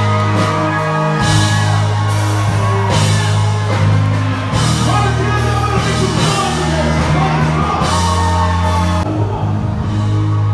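Loud party music with held bass notes and singing. Shouting and whooping from a crowd rise over it through the middle and drop away near the end.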